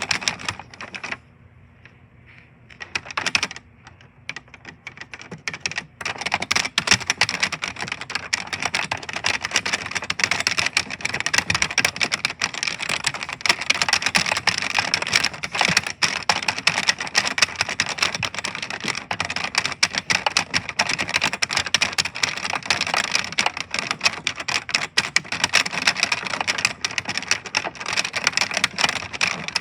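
Computer keyboard being typed on loudly and fast, keys clacking in a dense stream. A few scattered keystrokes at first, then about six seconds in the typing becomes rapid and continuous.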